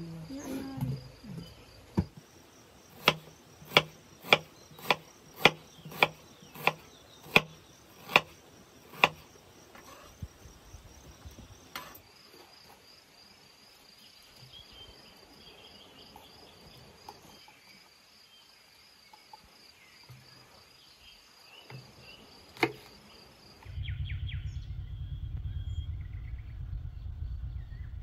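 Kitchen knife chopping onion on a wooden cutting board: about eleven sharp, even strokes, roughly one and a half a second, then a single stroke later on. Crickets chirr steadily in the background. Near the end a steady low rumble sets in.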